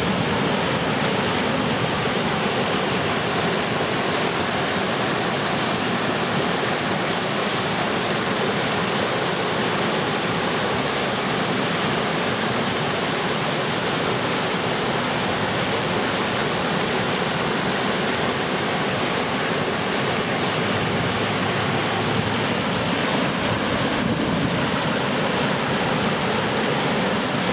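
South Platte River in flood, fast, high brown water rushing and breaking over whitewater rapids in a steady, loud, unbroken roar of water.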